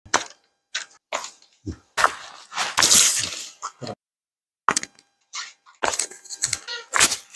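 Chiropractic spinal and joint manipulation: a series of short, sharp pops and cracks as the joints cavitate under the adjustment, with a longer noisy stretch about two seconds in.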